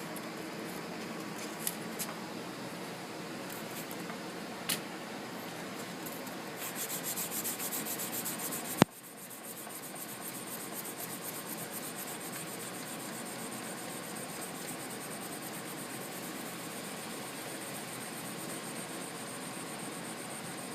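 A metal blade being sanded: steady rubbing and scraping, with a few light clicks and one sharp click about nine seconds in.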